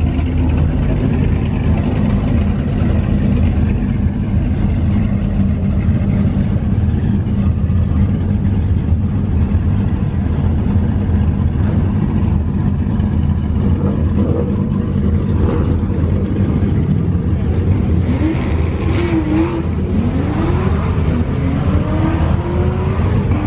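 Several performance cars' engines idling together: a loud, steady low rumble.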